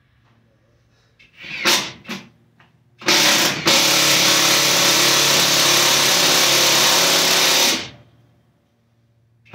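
Cordless drill driving a lag screw into a plywood wall: two short bursts, then a steady run of about five seconds that stops abruptly.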